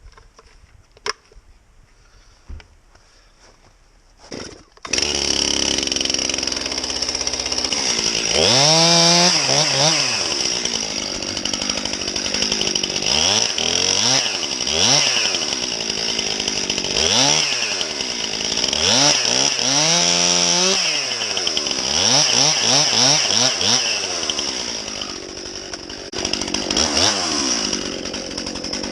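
A few faint clicks, then a chainsaw starts suddenly about five seconds in and runs loudly to the end. Its pitch rises and falls again and again as the throttle is opened and eased, as it cuts through the base of a pine tree.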